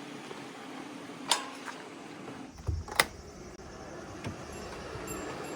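Two sharp clicks about a second and a half apart, with a low thud just before the second, over a steady low hum.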